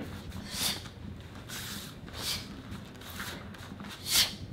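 Short, sharp swishes as a taekwondo student strikes and blocks through a form, about one a second, the loudest just after four seconds.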